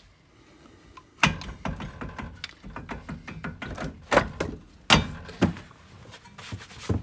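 Irregular metallic knocks and clanks of hand tools and brake parts being handled, the loudest about a second in and two more close together about four to five seconds in.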